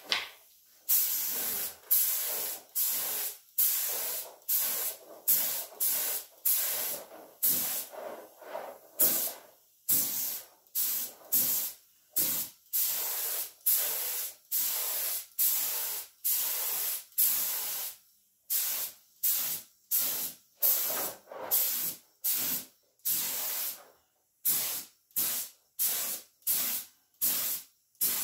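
Gravity-feed compressed-air paint spray gun hissing in short bursts, about one or two a second, as its trigger is pulled again and again to lay a coat of paint.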